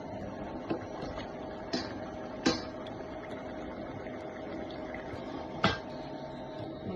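Kitchen noise: a steady hiss with a faint hum, broken by four short sharp clinks, two of them loud.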